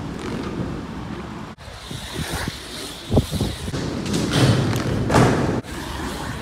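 Surf skateboard wheels rolling and carving across a skatepark bowl, with a few hard thumps from the board, the loudest about three seconds in. The sound cuts off abruptly twice.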